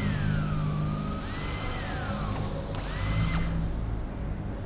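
Power drill run in short bursts: its motor whine rises, holds, and winds down, about three times.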